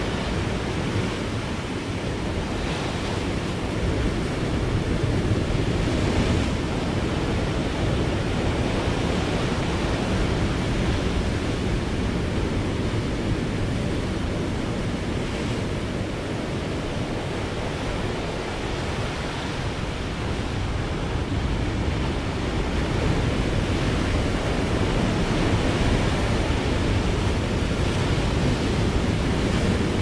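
Atlantic surf breaking and washing onto the shore in a continuous rush, swelling louder a few seconds in and again near the end.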